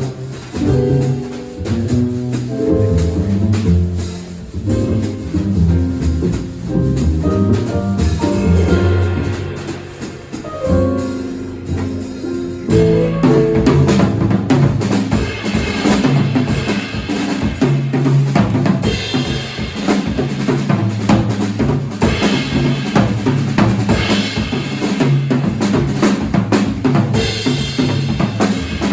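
Live jazz combo playing: piano and bass notes over a drum kit, with the drums becoming much busier and louder about halfway through, cymbals and snare to the fore.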